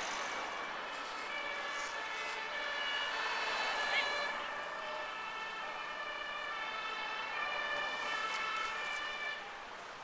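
Two-tone sirens (German Martinshorn) of approaching fire engines, the notes alternating steadily between two pitches and dropping off a little near the end.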